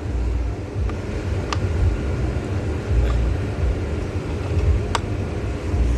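A few sharp plastic clicks, the spring clips of the engine air filter housing being snapped shut, over a steady low rumble with a faint hum.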